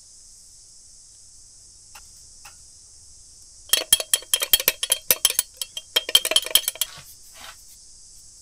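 Epoxy resin being stirred in a small glass jar, the stirrer clinking rapidly against the glass for about three seconds from around four seconds in.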